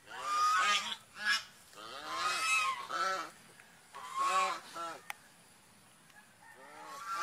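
Swan honking calls: three times a longer note followed by a short one, then after a pause one more call near the end. Each call rises and falls in pitch.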